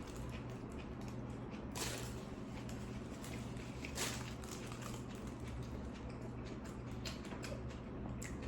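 Close-miked eating of a Subway tuna sandwich: soft chewing clicks, with two louder bites about two and four seconds in, over a steady low hum.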